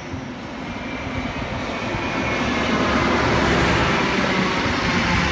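Endeavour diesel railcar set approaching and passing close by, its engine and wheels on the rails growing louder over the first three seconds, then holding steady.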